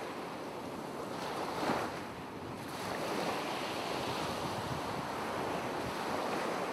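Ocean waves washing: a steady rushing noise with a brief surge about two seconds in.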